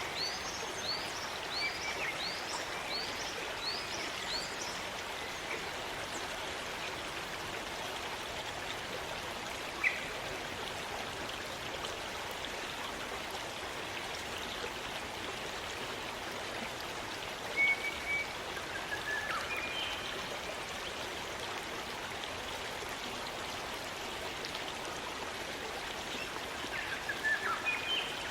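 Stream water running steadily in a rainforest, with scattered bird calls over it: a quick series of repeated chirps in the first few seconds, then short notes around the middle and again near the end. A single sharp click comes about ten seconds in.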